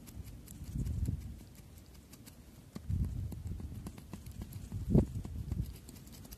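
Irregular dull knocks and clunks of suspension parts being handled, in a few clusters, the sharpest knock about five seconds in.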